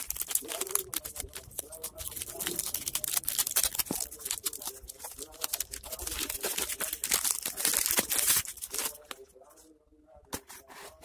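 Plastic mailer bag crinkling and tearing as it is handled and opened: a dense run of crackles and rustles that dies down to a few light handling sounds near the end.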